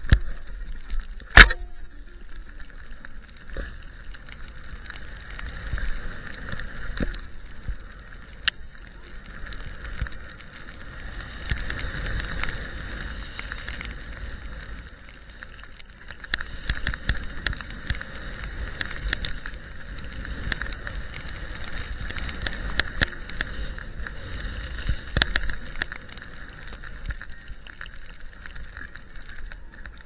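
Skis hissing through deep powder snow in turns, swelling and fading, with wind rumbling on the camera microphone. Scattered sharp knocks, the loudest about a second and a half in.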